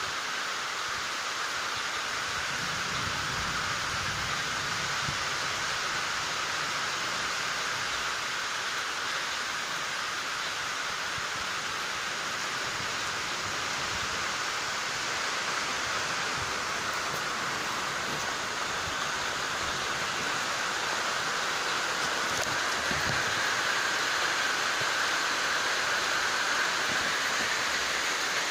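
Rain falling steadily in a continuous hiss, growing a little louder in the last few seconds.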